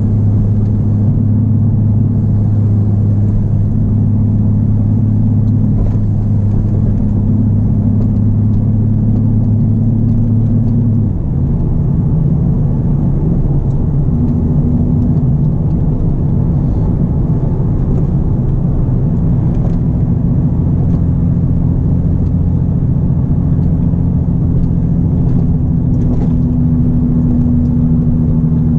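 Nissan 370Z's 3.7-litre VQ V6 through a Greddy single RS exhaust with Motordyne art pipes, droning steadily at cruise, heard from inside the cabin. About eleven seconds in the level dips briefly and the note settles at a different pitch, then holds steady again.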